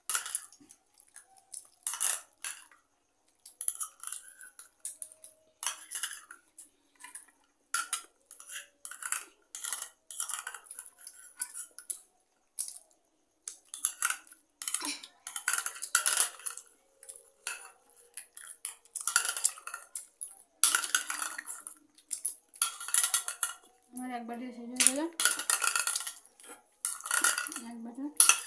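Metal spoons scraping and clinking against plastic bowls in quick, irregular strokes as two people hurry through bowls of noodles. Near the end there are a couple of short hummed voice sounds.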